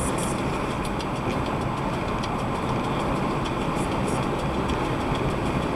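Steady road and tyre noise with engine hum inside a car's cabin cruising at highway speed, with a few faint light ticks.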